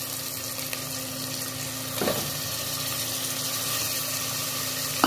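Raw mutton pieces sizzling in hot oil with fried onions in a pot, a steady sizzle under a faint steady hum. A brief scrape or knock of the spoon about two seconds in, and a sharper knock at the very end.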